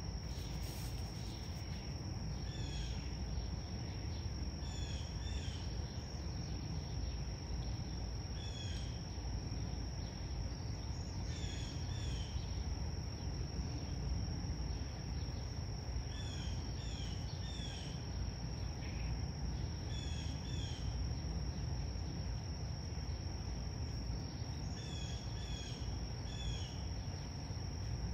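Insects trilling in one steady, unbroken high note, with small groups of short chirps every few seconds over a steady low rumble of background noise.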